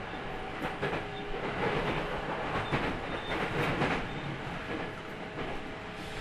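Running sound of a JR Central 313 series electric train heard inside motor car MoHa 313-5308 on the move: a steady rumble of wheels on rail, with faint steady tones and a click about once a second from rail joints.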